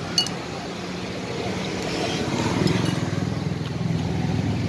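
A metal spoon clinks once against a ceramic bowl just after the start, with a brief ring. Under it, the steady low rumble of a motor vehicle engine running.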